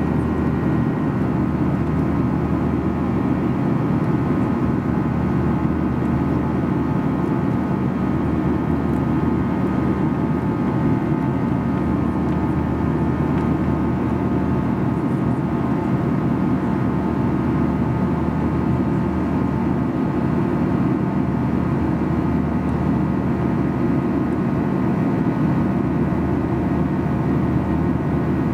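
Steady cabin noise inside a Boeing 737-800 climbing after takeoff: the low, even drone of its CFM56 turbofan engines and the airflow over the fuselage, with a few faint steady whining tones above it.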